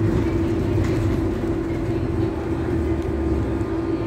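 Cabin noise on the upper deck of a moving double-decker bus: steady engine and road rumble with a constant hum.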